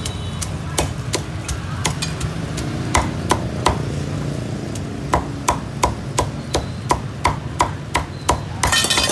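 Cleaver chopping roast pork: sharp repeated chops, scattered at first, then a quick steady run of about three a second. Near the end there is a brief rush of noise.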